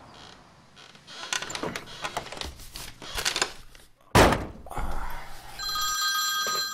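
Clicks and rattling in a VW Beetle's cabin as the driver climbs out, then a loud thunk from the car door shutting about four seconds in. A steady high tone with several pitches comes in near the end.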